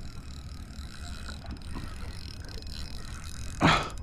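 Spinning reel being cranked while fighting a hooked fish on a bent rod, a steady mechanical whir of the reel's gears. A short, loud vocal exclamation comes about three and a half seconds in.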